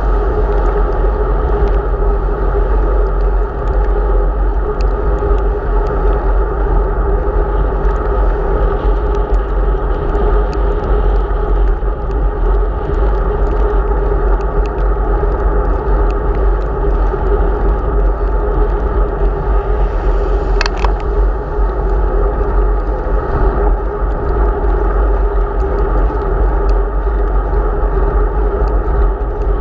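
Steady wind rumble on the microphone of a bicycle-mounted camera, mixed with tyre noise on wet asphalt as the bike rides along. A sharp click comes about 20 seconds in.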